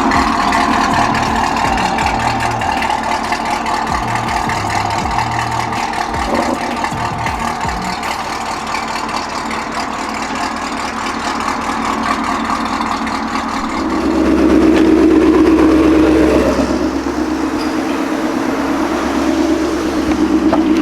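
Car engine running, swelling louder about two-thirds of the way through as it revs up, then settling back.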